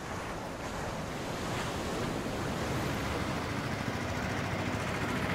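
Sea surf washing as a steady rushing noise that grows gradually louder.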